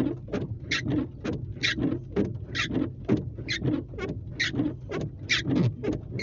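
Regular ticking inside a car, about two ticks a second, with every other tick sharper and higher, over a low steady hum.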